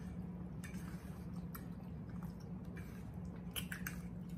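Close-miked eating: soft chewing and mouth sounds with a few light clicks, over a steady low hum.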